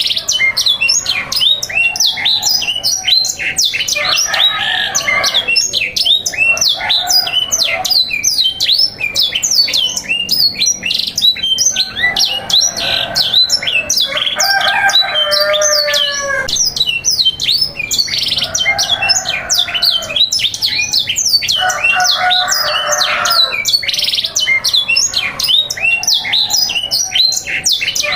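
Domestic canaries singing continuously, with dense rapid chirps and trills. Lower, harsher calls repeat every couple of seconds throughout.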